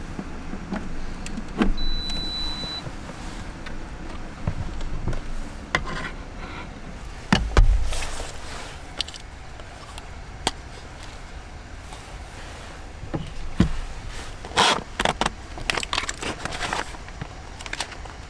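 Clicks, knocks and clinks of objects being handled inside a small camper, with a heavier thump about seven and a half seconds in and a flurry of clattering near the end, over a steady hiss of rain.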